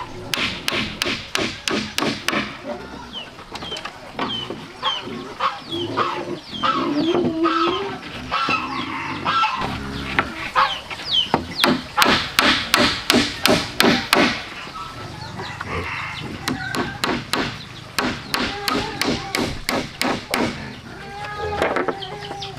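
Hammer driving nails into thin wooden boards, in quick runs of about three strikes a second with short pauses. Chickens cluck in the background.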